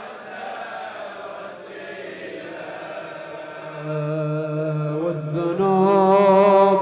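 A crowd of men chanting a Muharram lament refrain together, quieter and less distinct, while the reciter's microphone is lowered; about four seconds in, a male reciter's amplified voice takes up the melody in long, wavering held notes that grow louder near the end.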